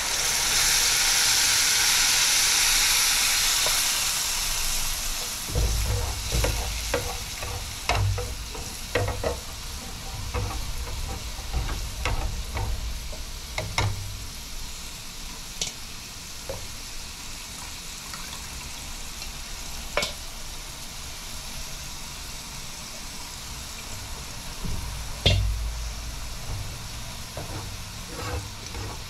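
Hot pan of fried dried red chillies and onions sizzling loudly as whisked yogurt is poured in, the hiss dying down after about four seconds. Then a metal spoon stirring the yogurt, with scattered clicks and scrapes against the pan.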